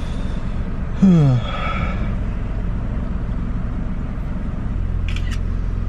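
Steady low hum of a car idling inside its cabin, growing a little louder near the end. About a second in, a short voice sound falling in pitch cuts across it.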